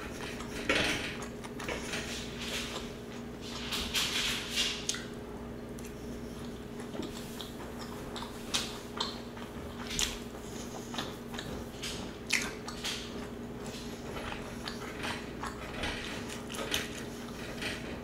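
Close-miked eating: a metal fork clicking and scraping on a griddle pan, with chewing and mouth sounds in between, as short irregular clicks over a faint steady hum.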